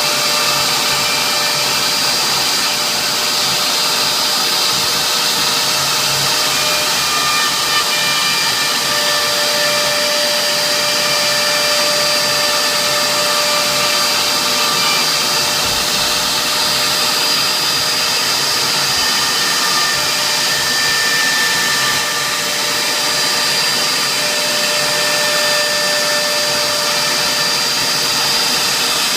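CNC router spindle running steadily while engraving, a constant hiss with a high whine that shifts slightly in pitch now and then as the cutting load changes.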